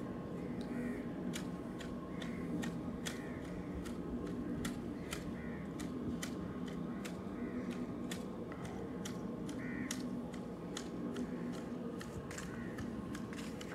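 Manual hedge shears clipping the leaves of a topiary bush. The blades close in an irregular run of sharp snips, about two a second.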